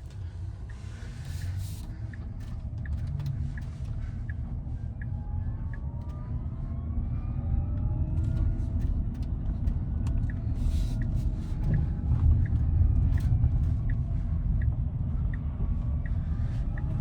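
Cabin sound of a three-motor Tesla Cybertruck CyberBeast accelerating while towing a loaded trailer. A low road and tyre rumble grows steadily louder, with a faint whine rising in pitch and faint, evenly spaced ticks.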